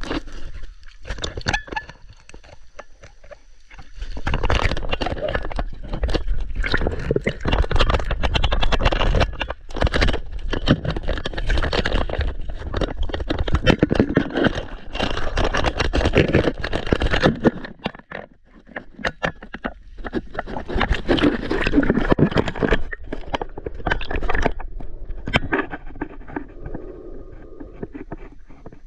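Water sloshing and splashing around a camera at the surface as a snorkelling diver moves in the water, heard as a dense run of irregular crackles and knocks. It is sparser for the first few seconds, thickens about four seconds in, dips briefly just past the middle and thins out near the end.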